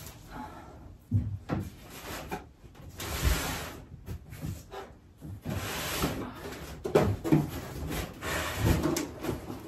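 Rummaging through boxes and stored clutter: irregular rustling, scraping and knocking as things are shifted and pulled aside.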